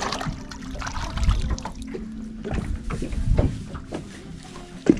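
Small boat at sea: a low steady hum with water noise and a few dull thumps, and one sharp knock near the end.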